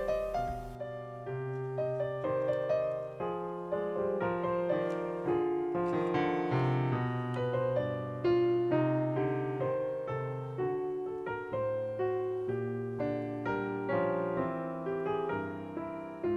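Background piano music, a melody of single notes over steadier low notes.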